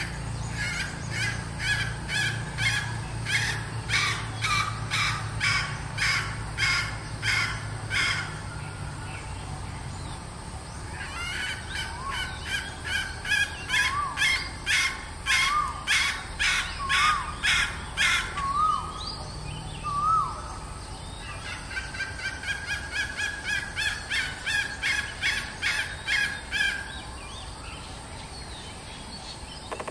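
Red junglefowl hen calling: rapid, harsh repeated clucks at about two a second, in three bouts, with a few short rising chirps in the middle bout.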